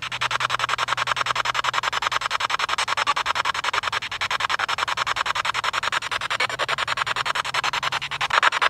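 Spirit box radio sweeping through stations: static chopped into fast, even pulses, about ten a second. Near the end a fragment of the sweep is taken by the investigator for the name "Emily".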